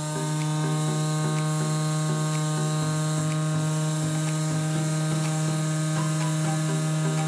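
Centrifugal juicer's electric motor running steadily with nothing being fed through it, a loud even hum with a faint regular ticking.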